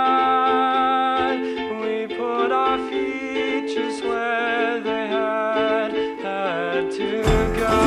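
Music: plucked strings carrying a wavering melody, with a fuller, heavier arrangement coming in near the end.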